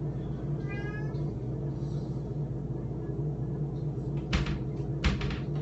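A kitten meows once, a short high cry about a second in. Near the end come two sharp knocks or rustles of something being handled, over a steady low background hum.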